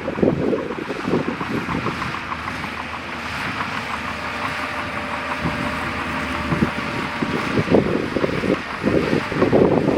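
Bulldozer's diesel engine running steadily. Wind buffets the microphone with gusty rumbles near the start and again near the end.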